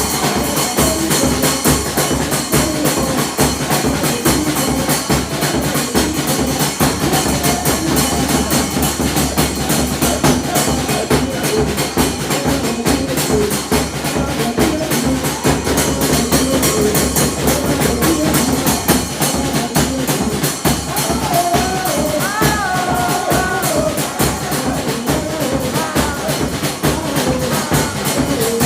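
Music with a drum kit keeping a steady beat under melodic instruments.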